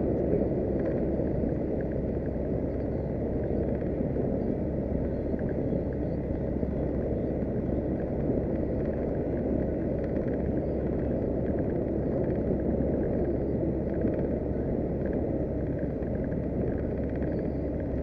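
A 40 hp outboard motor running steadily at cruising speed, the small boat under way with water rushing along the hull: a continuous, even rumble.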